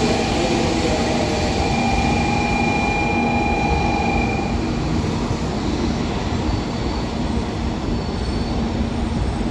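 Shinkansen bullet train moving along a station platform: a steady rumble with high-pitched whining tones that fade out about halfway through.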